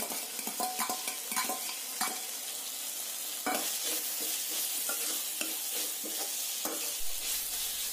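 Ivy gourd slices sizzling in hot oil in a steel kadai while a steel spoon stirs and scrapes them, with a steady hiss broken by frequent clicks and short metallic rings of spoon on pan.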